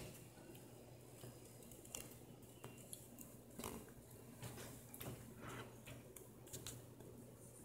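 Near silence: quiet room tone with a faint steady low hum and a few faint, scattered clicks.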